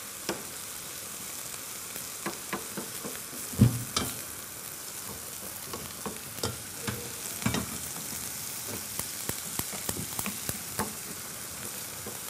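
Chopped onion, garlic and coriander sizzling in oil in a frying pan, stirred with a wooden spoon: a steady frying hiss with frequent taps and scrapes of the spoon against the pan, the loudest knock about three and a half seconds in.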